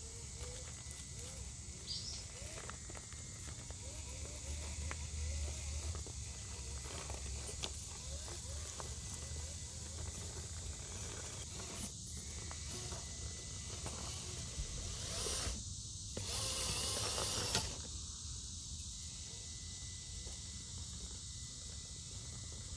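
Steady chirring of insects, with the faint whine of a small RC crawler's electric motor rising in short throttle bursts in the first few seconds. About sixteen seconds in comes a brief, louder rush of scraping noise.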